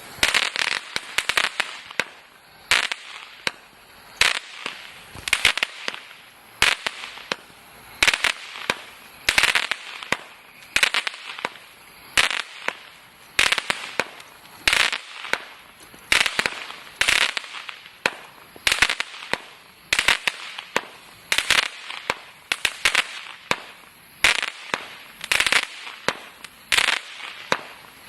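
Total FX Crackling Wood, a 49-shot crackle-effect firework cake, firing shot after shot. Each shot is a sharp launch pop followed by a burst of dense crackling, about one every second.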